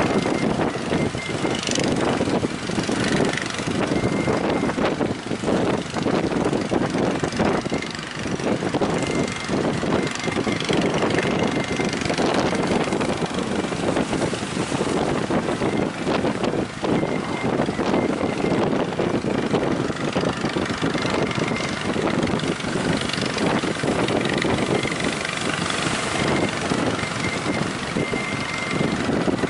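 An engine running steadily under a rough, buffeting rush of wind.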